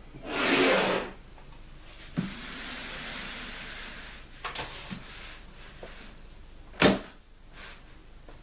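A wooden suitcase scraping as it is slid across a wooden desktop: a rough scrape just after the start, then a longer, softer slide with a few small knocks. One sharp knock near the end is the loudest sound.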